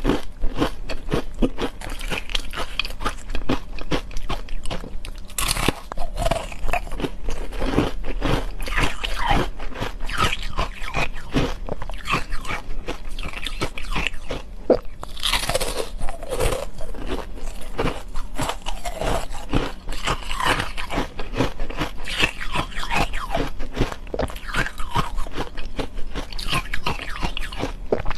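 Frozen ice bars coated in matcha green tea powder being bitten and chewed, a rapid, continuous run of sharp crunches. A steady low hum sits underneath.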